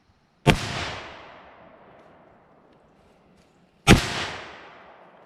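Two rifle shots about three and a half seconds apart, each a sharp crack followed by a long, fading echo.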